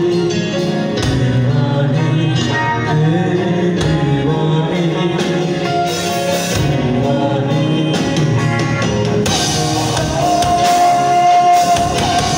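A live band playing through stage speakers: a male singer over a Korg keyboard, drum kit and guitar, with a long held note in the last couple of seconds.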